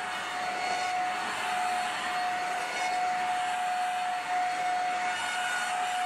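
Vacuum cleaner running steadily, a constant motor whine over a rushing air hiss, as its floor tool is pushed along a mattress.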